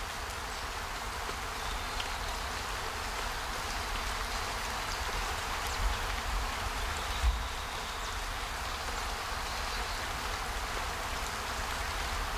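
Steady outdoor nature ambience: an even hiss with a low rumble beneath it, and two brief low thumps about six and seven seconds in.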